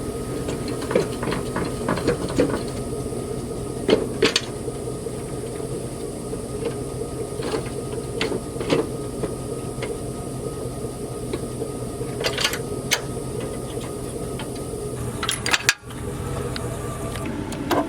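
Steady running noise inside a vehicle's cabin, with scattered light clicks and knocks and a brief dropout near the end.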